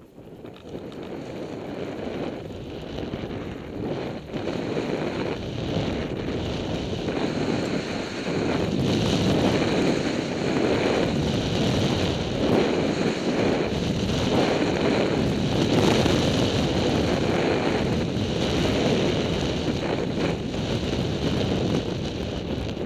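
Wind buffeting the microphone of a camera worn by a downhill skier, a rushing noise that grows much louder over the first several seconds as speed builds, mixed with the hiss of skis on groomed snow.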